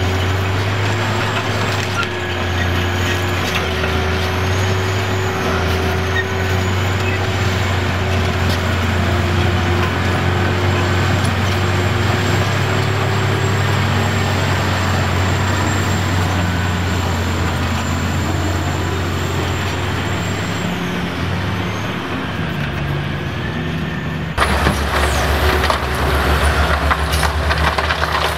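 Heavy diesel engines of a Komatsu PC1250 excavator and a Cat 777F haul truck running steadily, their pitch shifting a little as the machines work. About four seconds before the end the sound jumps louder and closer, with rock clattering and scraping as the excavator bucket digs into the rock pile.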